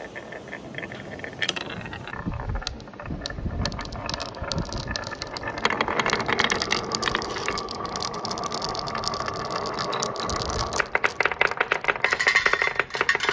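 Glass marbles rolling down a wooden marble run: a steady rolling rumble full of clicks as the marbles knock against the wooden track and each other. It grows busier and louder about six seconds in, when many marbles run at once.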